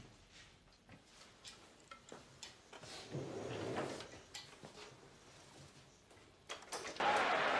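Small clicks and rustles in a quiet room, with a louder rustle about three seconds in as a man settles into a desk chair. About seven seconds in a television comes on with the crowd noise of a football broadcast.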